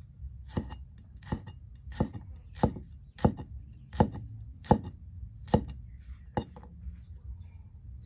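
Kitchen knife slicing garlic cloves on a thick round wooden chopping block, each cut ending in a sharp knock of the blade on the wood, unevenly, about one to two a second.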